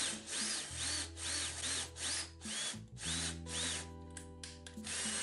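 Cordless drill boring into a walnut block, the trigger pulsed so the motor whine rises and falls about three times a second, then held for a steady run near the end.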